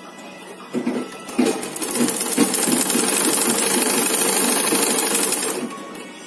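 Black mechanical sewing machine stitching piping onto cotton fabric: a fast, steady run of needle strokes that starts about a second in and stops near the end.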